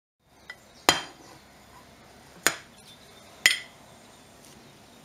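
A ceramic plate set down on a hard table, then a small grater put on it: a faint tick, then three sharp clinks that each ring briefly, the loudest about a second in.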